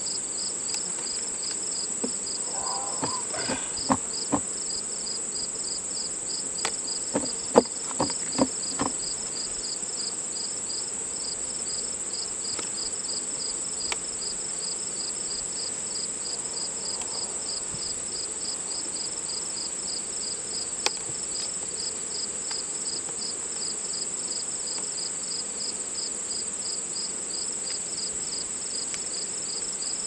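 Insects in the grass keep up a steady high trill, with a second high chirp pulsing rapidly and evenly over it. A few sharp wooden clacks from hive frames and boxes being handled come a few seconds in.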